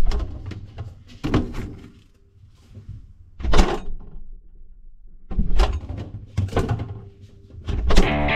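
Door and handling noises in a small room: about six separate knocks and bumps with quiet between them, the loudest about three and a half seconds in and just before the end.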